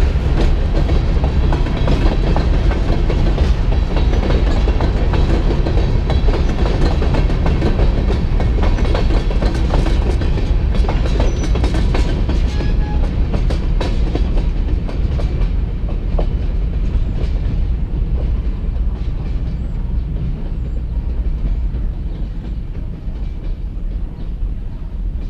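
Freight train cars (covered hoppers, then a tank car at the end) rolling past, steel wheels clicking over the rail joints. The clatter thins out and the rumble slowly fades over the last several seconds as the end of the train passes and draws away.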